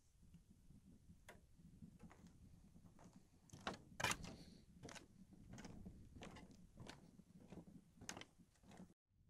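Footsteps on a wooden boardwalk: a steady series of hollow knocks at an easy walking pace, about two steps a second, starting about a second in, with one louder step about four seconds in.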